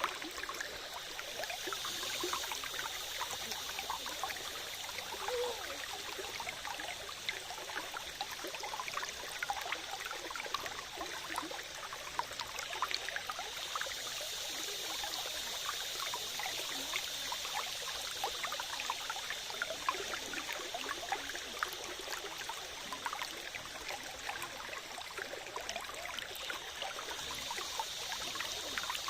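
Water from a small stream or spring trickling and burbling steadily, with a constant babble of small splashes.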